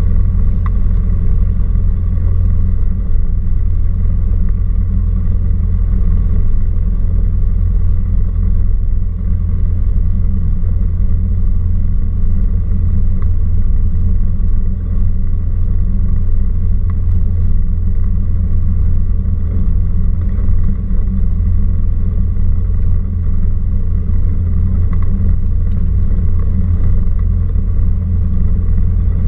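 Cessna 172R Skyhawk's four-cylinder Lycoming engine and two-blade propeller running steadily at low power while taxiing, a deep even drone with no change in pitch.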